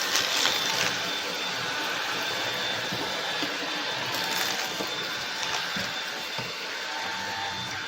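Eureka RapidClean Pro cordless stick vacuum running steadily: an even rush of air with a faint steady whine.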